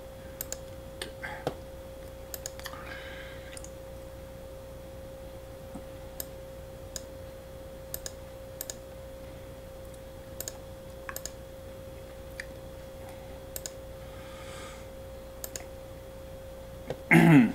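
Computer mouse clicks at uneven intervals, over a steady hum. A short loud burst near the end.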